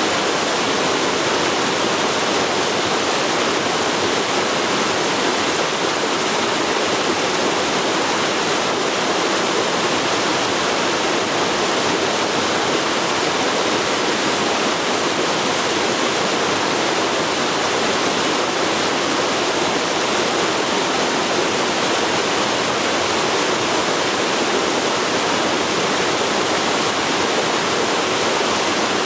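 River water rushing and flowing in a steady, even torrent.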